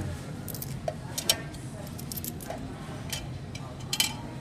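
Loose coins clinking and clicking as a hand rummages through the metal reject tray of a Coinstar coin-counting kiosk: scattered sharp clinks, the loudest about a second in and a pair near the end, over a steady low hum.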